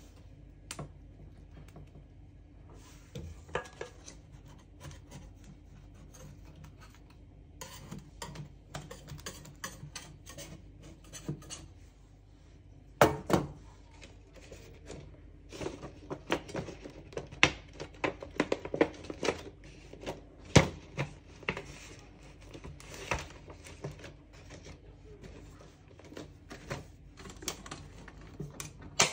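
Irregular clicks, crinkles and scrapes of a clear plastic acetate cake collar being handled and fitted against a metal baking tin, with a few sharper knocks.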